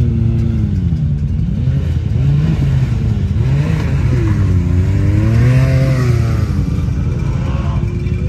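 Side-by-side UTV engine revving up and down again and again as it climbs a steep rock slope under load, the pitch rising and falling with each push of the throttle and loudest a little past halfway.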